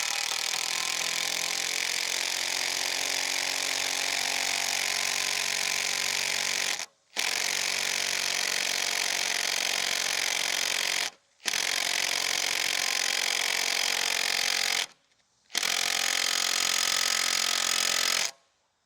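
Power drill driving a screw into a seasoned oak beam without a pilot hole, run in four long steady bursts with brief stops between. The screw goes in hard: the oak is too hard to drive into without pre-drilling.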